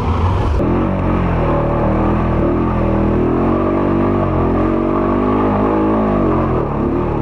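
ATV engine running under way, its revs rising and falling as it is ridden along a trail.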